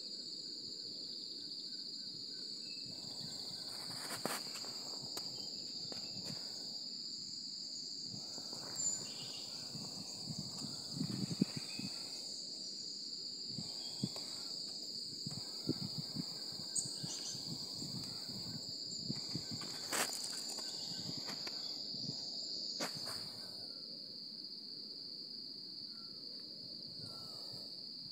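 A steady, high-pitched insect chorus drones without a break over a low rumble, with a few sharp clicks now and then.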